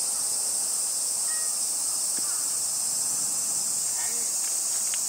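Steady, high-pitched chorus of insects, with a few faint short chirps over it.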